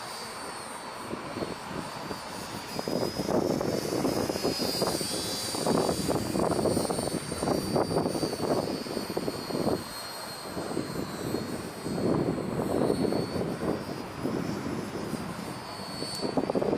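High whine of a micro RC P-38's twin brushed electric motors and three-blade propellers in flight, wavering up and down in pitch as the plane passes. Gusts of wind buffet the microphone, swelling and fading every few seconds and louder than the motors.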